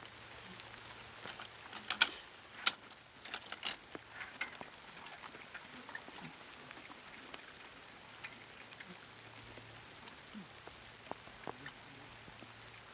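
Light rain: a faint steady hiss with scattered sharp drips and taps of drops hitting a surface, busiest a couple of seconds in and thinning out later.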